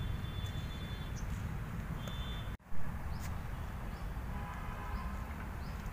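Outdoor ambience: a steady low rumble with faint, short high chirps such as birds make, broken by a brief dropout about two and a half seconds in.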